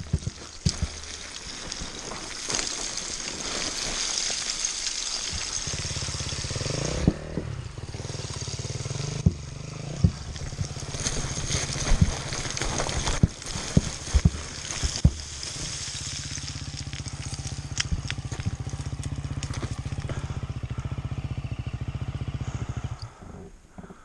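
Yamaha enduro motorcycle engine. For the first few seconds there is mostly a hissing noise. About six seconds in the engine note comes up and rises in pitch as the bike pulls away, then runs steadily under sharp knocks from stones and bumps on a rocky trail, and it cuts off near the end.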